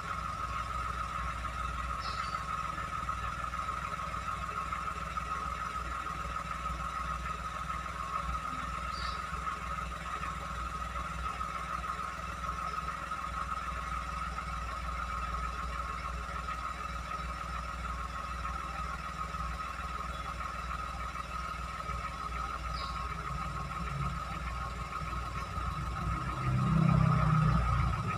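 Toyota Agya car engine idling steadily, a low rumble with a constant whine over it, rising briefly louder near the end.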